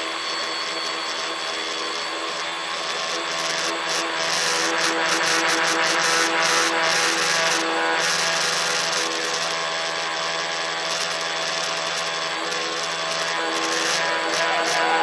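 A tricopter's electric motors and propellers whining steadily in flight, several even tones over a hiss of wind and prop wash, heard from on board the craft. It grows louder about four seconds in.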